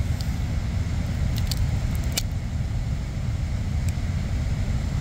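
A few small sharp clicks and cracks from the smashed iPod Touch's bent metal casing and cracked glass being pried open by hand, over a steady low rumble.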